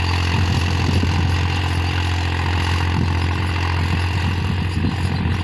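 Powertrac Euro 50 tractor's diesel engine running steadily under load while pulling an 18-disc harrow through dry soil: a constant low hum.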